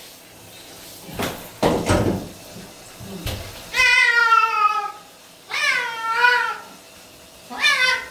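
Bengal cat meowing during a shampoo bath: three long, loud meows, the last starting near the end. A short rustle comes about a second in.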